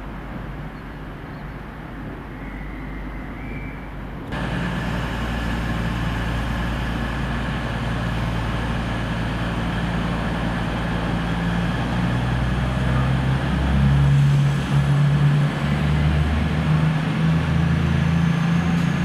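Diesel train engine running, a low rumble that steps up suddenly about four seconds in and grows louder and more uneven in the last several seconds.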